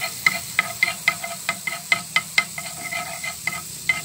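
Melting fat sizzling and crackling in a nonstick frying pan, with sharp pops several times a second as a spatula stirs it.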